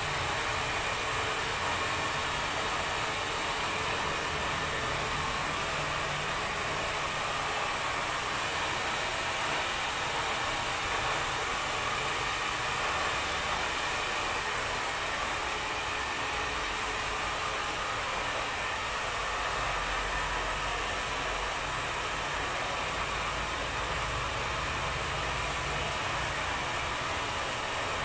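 Steady rushing noise that holds at one level without a break.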